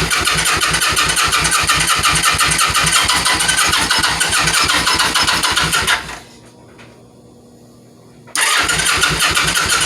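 Kawasaki Vulcan 900's V-twin engine being cranked by its electric starter, turning over in a fast even rhythm but never firing: a no-start. The cranking stops about six seconds in and starts again after a pause of about two seconds.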